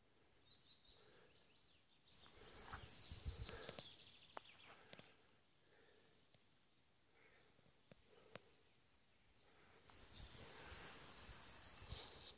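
A small songbird singing a phrase of repeated high two-note calls, twice: about two seconds in and again near the end. Each phrase comes with a rushing noise, and faint bird calls and a few clicks fall between.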